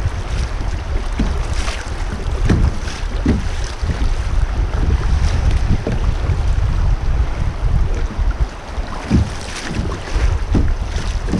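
Wind buffeting the microphone over the rush of fast river current running through a riffle, with occasional splashes from a kayak paddle.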